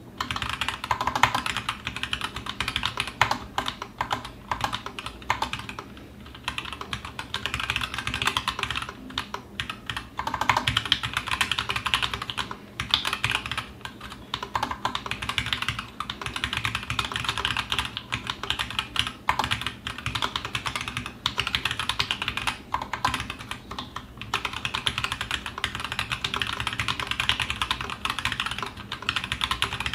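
Continuous fast typing on a TGR Alice custom mechanical keyboard with stock, unlubed 78g Zealio V2 tactile switches and GMK Oblivion keycaps: a dense stream of key clacks, thinning briefly a few times.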